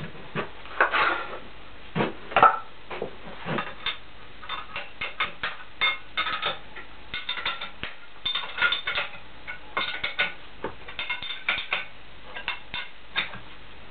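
Metal hand tools and parts clinking and knocking against a milling machine while it is being assembled: an irregular run of short, sharp metallic knocks and clinks, the loudest about a second and two and a half seconds in.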